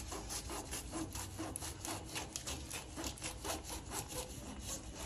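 A kitchen knife sawing back and forth through a hard, fridge-chilled date and dry-fruit roll, in quick, steady scraping strokes.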